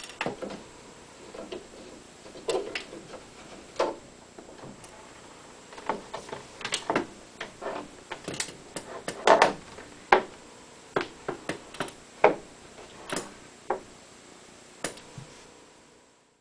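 Irregular wooden knocks and clicks from refitting parts of a Streicher fortepiano's case: a screwdriver working the frontrail screws under the keyboard, then the fallboard being set back in place. A few sharper knocks come about nine and twelve seconds in.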